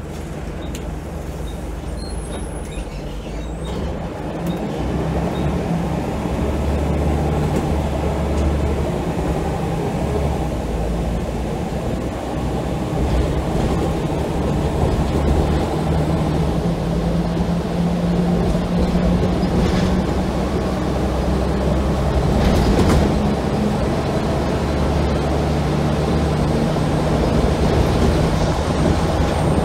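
Scania L94UB single-deck bus heard from inside the rear of the saloon: its rear-mounted diesel engine pulls hard through a ZF Ecomat automatic gearbox, growing louder over the first few seconds and then holding steady, over road and body noise.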